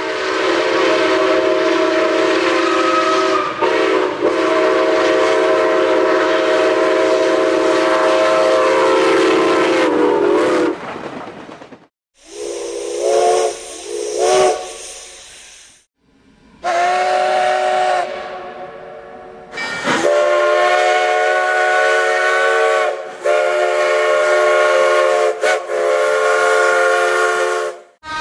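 Steam locomotive chime whistles blowing chords with steam hiss, in several cut-together clips. One long blast with a brief break near the start comes first, then two short toots, then two longer blasts with short breaks in them.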